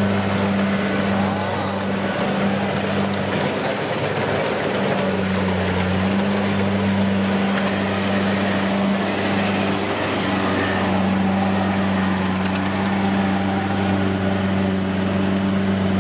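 Diesel engine of farm machinery in a rice field running steadily at constant speed, a low, even hum.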